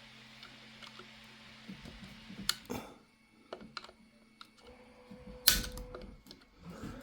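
Scattered clicks and snaps of 3D-printed plastic support material being picked and broken off a print by hand, with a sharper snap a little after two and a half seconds and the loudest one about five and a half seconds in.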